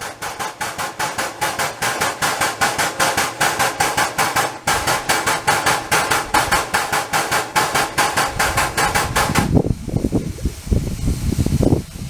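A 15-inch gauge steam train running with a rapid, even beat of about five strokes a second. About three-quarters of the way through, the beat stops and wind buffets the microphone.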